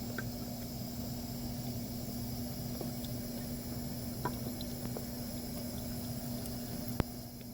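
Water running steadily from a push-button drinking fountain, over a constant low hum, with a sharp click about seven seconds in as the flow eases off.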